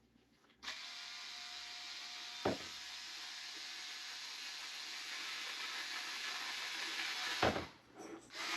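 Cordless electric screwdriver running steadily for about seven seconds, driving a screw. There is a sharp knock a couple of seconds in and another just before it stops.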